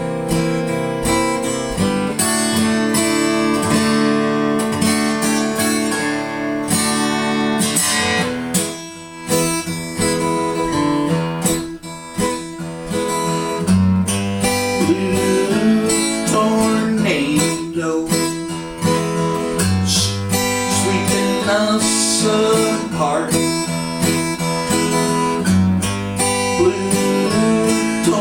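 Instrumental passage of a song: strummed acoustic guitar, joined by deeper bass notes from about halfway.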